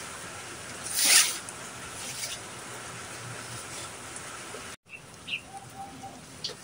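Steady hiss of rain falling on the surroundings, with one brief loud burst of noise about a second in. After an abrupt cut, a few short high chirps near the end.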